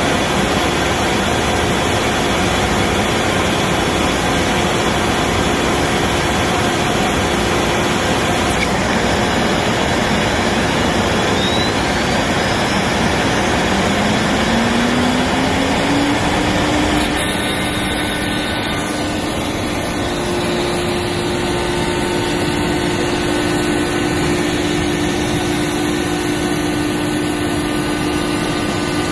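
CNC router spindle cutting cell cast acrylic sheet, with its dust extraction running: a loud, steady mechanical noise. About halfway through, a low tone rises in pitch and then holds.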